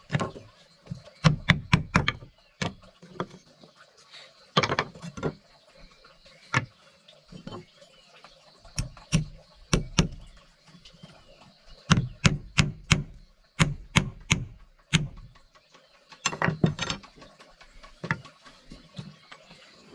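A series of sharp knocks and clacks at an uneven pace, some in quick runs of three or four, others single.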